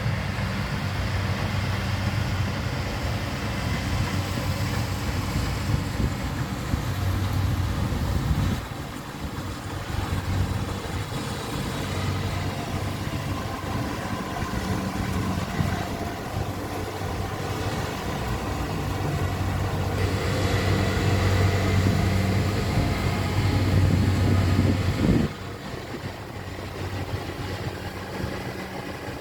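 Rice harvester's engine running steadily with a low hum. It dips briefly about eight seconds in and drops off sharply near the end.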